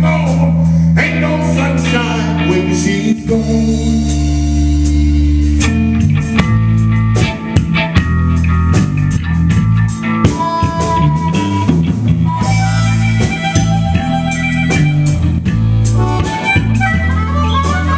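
Live electric blues band playing an instrumental section: electric guitar, electric bass and drum kit.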